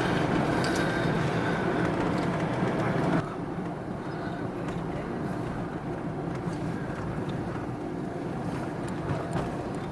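A moving car's road and engine noise, heard from inside the cabin while driving. The noise drops suddenly to a lower level about three seconds in, then runs on steadily.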